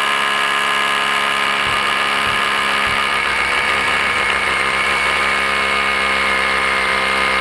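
SDS rotary hammer with a full-carbide-head masonry bit (Diablo Speed Demon) drilling into half-inch steel rebar embedded in a concrete slab: a steady, unbroken motor whine and grinding at one even pitch, with a low chatter underneath, as the bit works on the bar.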